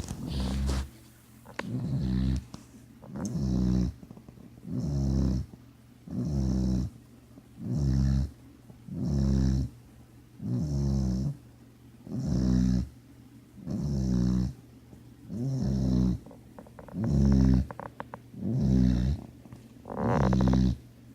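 Steady, rhythmic snoring, one snore about every second and a half, with quiet breaths between; one snore near the end is louder and harsher.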